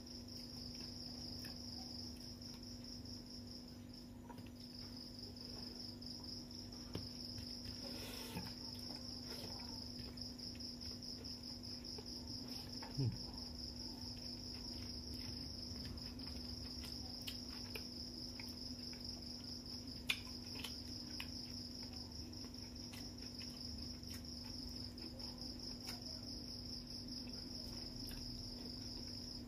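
Insects chirping in a continuous high-pitched trill, over a steady low hum. Faint scattered clicks of eating rice and fish with the fingers, with two brief louder knocks, one about midway and one about two-thirds through.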